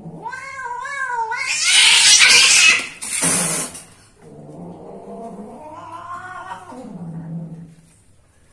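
Female cat's cry at the end of mating: a wavering yowl that turns into a loud, harsh hissing scream about one and a half seconds in as she breaks away from the male, then a lower, drawn-out growling yowl.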